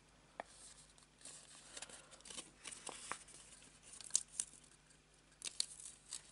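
White cardstock being folded and pressed into place by hand: faint paper rustles with scattered small crisp ticks, a few sharper ones about four and five and a half seconds in.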